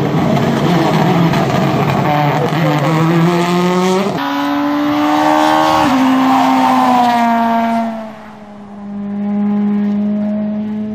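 Rally cars at full throttle. An engine revs up hard with sudden drops in pitch at gear changes, about four and six seconds in. Then a car passes with a falling note, the sound dips briefly, and a steady engine note follows near the end.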